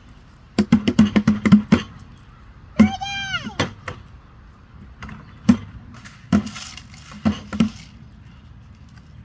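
A quick run of sharp bangs, a single high squeal that rises and falls about three seconds in, then a few more scattered bangs.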